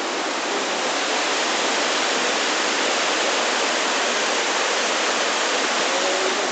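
Rain-swollen flash flood of muddy water pouring down a rocky gorge as a waterfall: a loud, steady rush of water.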